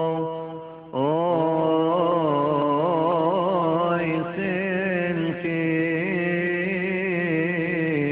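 Coptic hymn chanted by a male voice in long melismatic phrases, holding notes and winding through ornaments. One phrase dies away and a new one begins about a second in.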